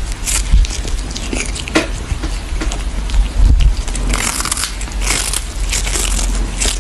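A cat biting and chewing on a small fish, with irregular crunches as it gnaws.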